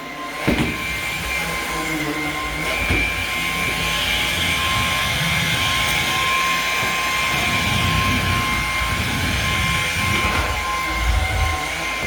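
Lupe cordless vacuum cleaner running steadily, a motor whine over a rushing hiss, with uneven low rumbling as it is pushed over the floor and a knock about half a second in.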